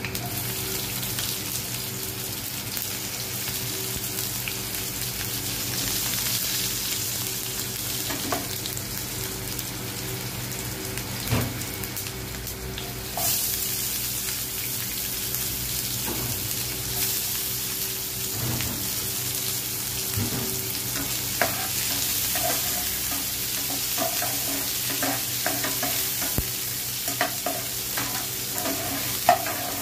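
Cumin, garlic and green chillies sizzling in hot oil in a frying pan as the tadka for dal fry. About 13 seconds in, chopped onion goes in and the sizzle gets louder. In the last several seconds a metal spatula scrapes and stirs the pan.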